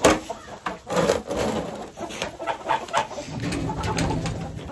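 Chickens clucking, with a few sharp knocks and clatter mixed in.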